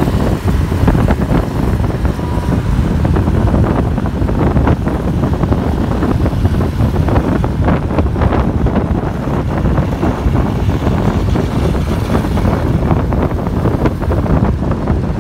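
Wind buffeting the microphone of a phone carried on a moving scooter or motorcycle, a loud, steady low rumble over the noise of the road and passing traffic.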